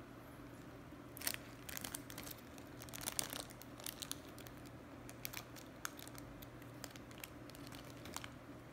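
Faint crinkling and crackling from handling a fried bread over its plastic wrapper, in scattered clusters that are busiest in the first few seconds, over a low steady hum.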